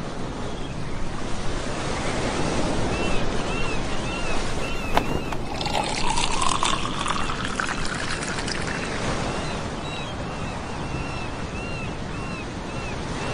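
Steady noise of ocean surf on a beach. Short high chirps repeat about twice a second, and a rising tone sweeps up about six seconds in.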